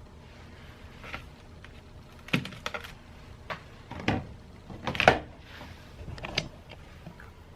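A string of sharp, irregular knocks and clatters, about seven in all, the loudest in the middle, like hard objects being handled and set down.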